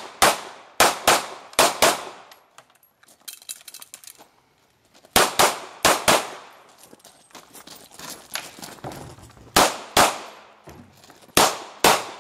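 Ruger P95 9mm semi-automatic pistol fired in quick strings of shots, each with a short echo: five shots in the first two seconds, four more near the middle, then two pairs toward the end.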